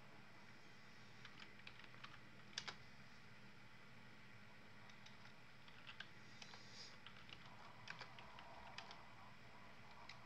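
Faint, irregular keystrokes on a computer keyboard, coming in scattered runs, with a louder pair of clicks about two and a half seconds in.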